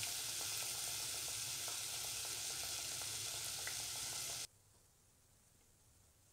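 Ring doughnuts deep-frying in a pot of hot oil: a steady sizzle with small crackles, cutting off suddenly about four and a half seconds in.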